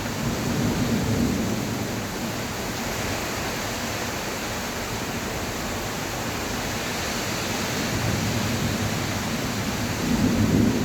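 Heavy rain falling, a steady dense hiss, with a low rumble that swells briefly near the start and again near the end.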